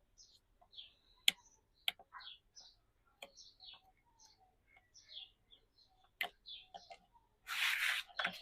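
Scattered sharp clicks of hand tools working on a motorcycle's exhaust fittings, amid many short high bird chirps, with a brief hiss lasting about half a second near the end.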